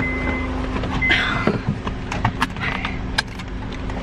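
A car's electronic warning chime beeps twice, about a second apart, over a steady low hum. Then come scattered knocks, clicks and rustling as someone climbs into the car.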